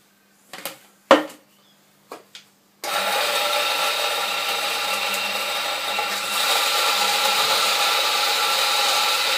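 A few short clatters as coffee beans are tipped into an espresso grinder's hopper. About three seconds in the grinder's motor starts and runs steadily, grinding the beans into the portafilter held under its spout.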